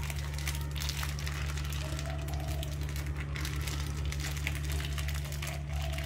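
Plastic packet of laksa paste crinkling as it is squeezed out over a pot of boiling broth, with crackly bubbling and a steady low hum underneath.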